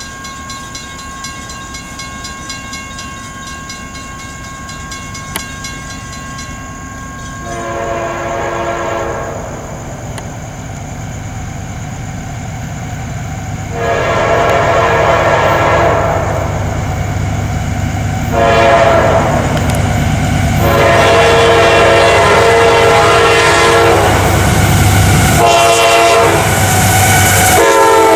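A CSX freight locomotive's horn sounds a series of blasts as the train closes on a grade crossing, the later blasts long and nearly run together, over a diesel rumble that grows louder. At the very end the horn drops in pitch as the locomotive passes. Before the horn starts, a crossing bell rings steadily.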